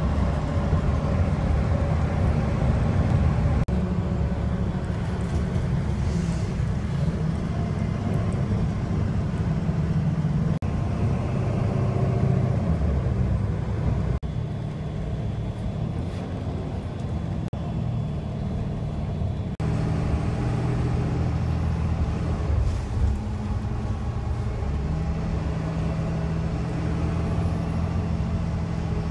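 Steady low rumble of a moving vehicle heard from inside the passenger cabin, with engine hum that shifts in pitch as it changes speed. The sound changes abruptly about twenty seconds in, into a similar rumble.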